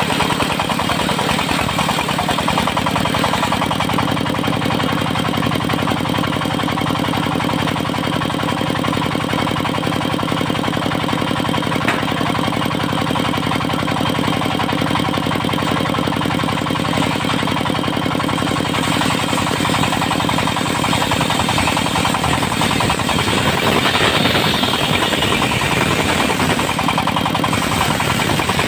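Diesel engine of a portable circular sawmill running steadily with a fast, even knocking beat. A higher hissing sound joins for a few seconds near the end.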